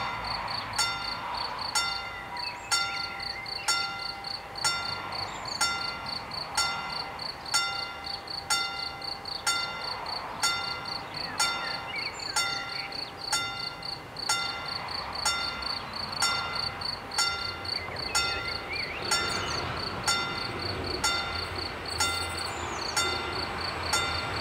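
German level-crossing warning bell striking steadily, a little faster than once a second, each strike ringing with several clear tones, over a fast high pulsing and a few bird chirps. A low rumble builds over the last few seconds as the train approaches.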